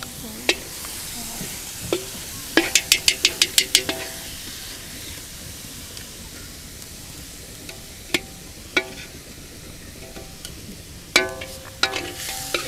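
Food cooking with a steady sizzling hiss, broken about three seconds in by a quick run of about eight sharp, ringing clinks, with a few single clinks later and another cluster near the end.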